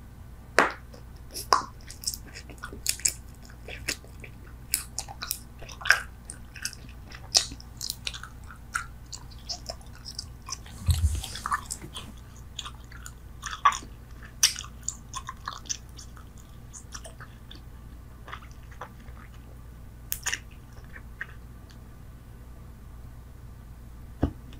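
Close-miked bubble gum chewing: irregular wet smacks and clicks of the mouth, dense for most of the stretch and sparser near the end.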